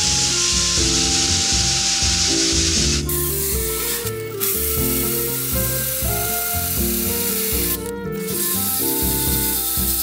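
Sanding disc spun by a cordless drill, hissing and rubbing across a rough wooden tabletop, loudest for the first three seconds. The disc stops briefly twice, about four and eight seconds in. Background music plays throughout.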